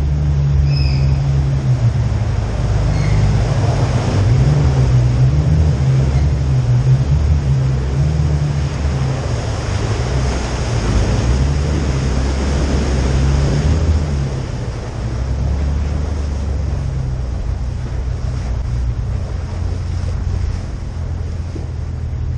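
4x4 engine running at low speed with a steady low drone, under a hiss of tyres rolling through water on the tunnel floor; the hiss eases off a little past halfway.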